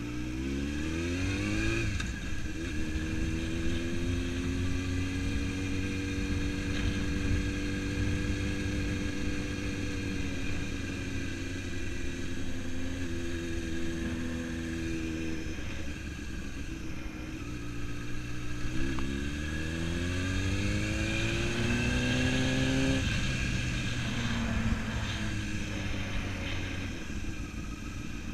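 Motorcycle engine under way: revs climb in the first two seconds, hold steady while cruising, then climb again from about eighteen seconds in and drop sharply at about twenty-three seconds, as at a gear change.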